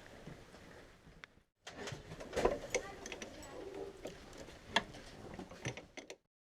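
Faint scattered clicks and light knocks, the sharpest about two and a half seconds in and just before five seconds, over a low hiss. The sound cuts off abruptly to dead silence near the end.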